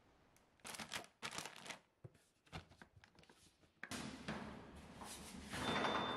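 Rustling and crackling of plastic and paper food packaging being handled in a crate, in short separate bursts. About four seconds in it gives way to a steadier hallway noise that swells near the end, with a faint high steady tone starting shortly before the end.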